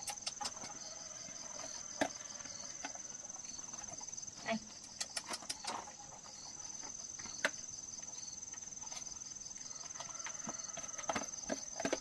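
Crickets trilling steadily in a high, fast-pulsing tone, breaking off for about two seconds in the middle, with scattered sharp clicks and taps over it.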